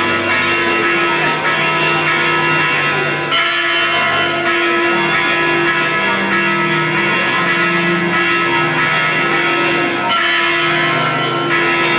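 Music: a slow melody of long held notes over a steady accompaniment.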